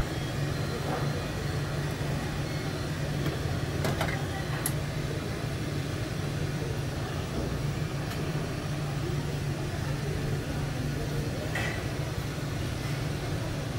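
A steady low machine hum, with a few light clicks.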